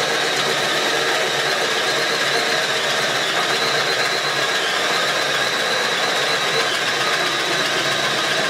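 Hand-held electric drill running steadily under load, boring a large wood bit down through a wooden beam. The motor whines at a steady pitch over the rough sound of the cutter chipping out wood.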